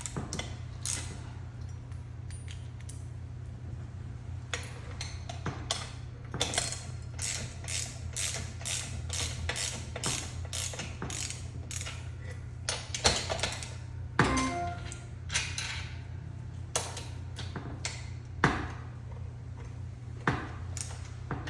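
Socket ratchet clicking in runs of strokes as the bolts on the steel fly arm brackets are snugged down, over a steady low hum.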